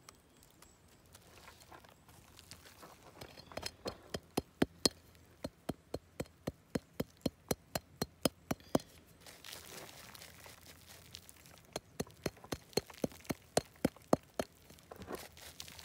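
Steel rock pick tapping and chipping at crumbly, weathered rock to dig out an augite crystal that still runs back into the face. The sharp taps come about four a second for several seconds, some with a faint metallic ring, then after a short pause another run of taps near the end.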